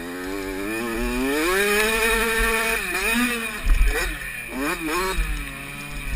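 Motocross dirt bike engine under hard throttle. It revs up steadily for about two seconds and holds, drops briefly about three seconds in, then blips up and down several times as the rider works the throttle over the rough track. Wind buffets the bike-mounted microphone.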